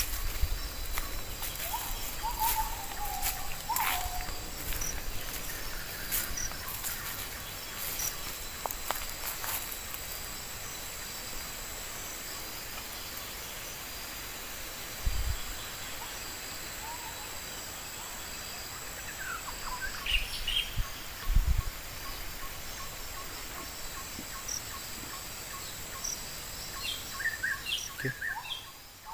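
Tropical forest ambience: insects keep up a steady high-pitched drone while birds give short chirps and whistles. In the second half one bird repeats a short note about twice a second. Leaves and undergrowth crackle and rustle in the first half, and there are two low thumps near the middle.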